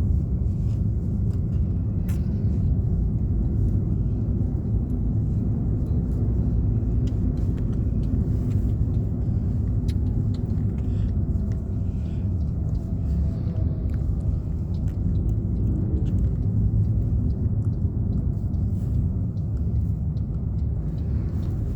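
Steady low rumble of a vehicle travelling along a road, with a few faint clicks and rattles over it.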